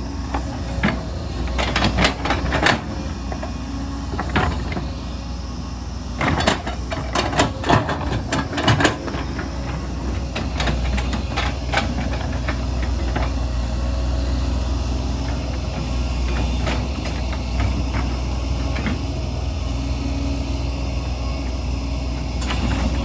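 Excavator diesel engine running steadily under load, with sharp clanks and knocks of the bucket working rock and soil, most frequent in the first nine seconds or so.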